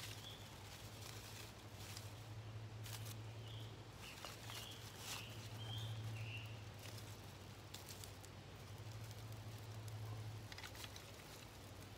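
Small kindling campfire crackling faintly as thin sticks are handled and laid onto it, with scattered sharp snaps and knocks. A few short bird chirps come in the middle, over a steady low hum.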